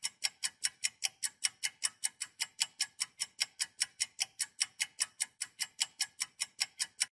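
Countdown timer sound effect: steady, even clock-like ticking, about five ticks a second.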